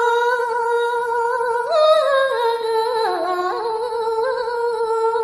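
A solo woman's voice singing Balinese geguritan verse, drawing out one long melismatic vowel with vibrato. The held note steps up briefly about two seconds in, dips lower around three seconds, and settles back on the first pitch.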